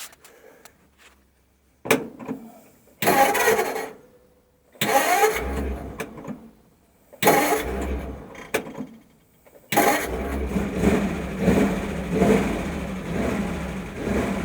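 1941 Ford pickup's flathead V8 cold-started without choke: the starter cranks in three separate bursts, and about ten seconds in the engine catches and keeps running. The carburetor on this engine has been flooding.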